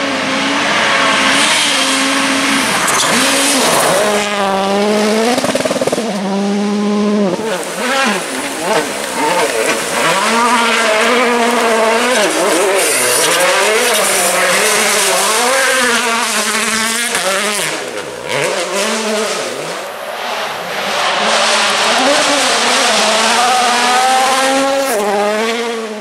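World Rally Cars with 1.6-litre turbocharged four-cylinder engines at full attack, passing one after another on gravel. The engine pitch climbs and drops sharply again and again through gear changes and lifts, over the hiss and spray of gravel from the tyres.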